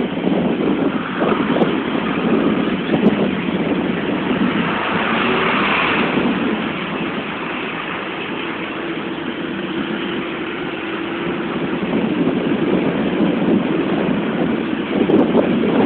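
Vehicle engine running with road noise, steady throughout and swelling briefly about five seconds in.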